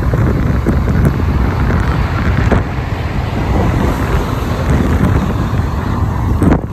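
Wind buffeting the microphone over the steady rumble of a moving road vehicle, a dense low noise with no clear engine note.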